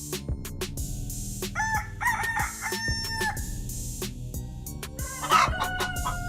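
Rooster crowing twice: a long held crow about a second and a half in, and a second crow starting near the end. Short clicks run underneath.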